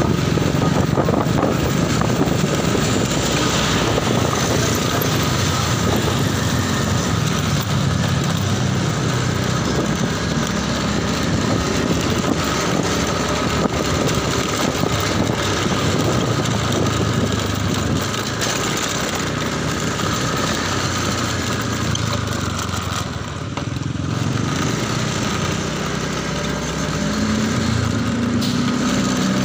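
Motorcycle engine running steadily while riding, picked up from the handlebar with constant wind and road noise over it. Near the end the engine note rises as the bike speeds up.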